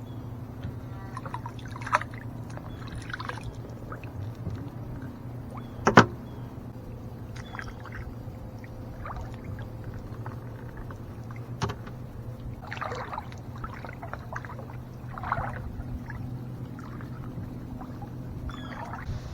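Metal detecting: a steady low hum runs under scattered short crunches and scrapes as the ground is searched, with a sharp knock about two seconds in and a louder one about six seconds in.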